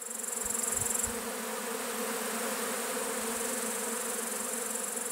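Carniolan honeybees humming over an opened hive: a steady, even buzz, with a steady high-pitched chirring above it.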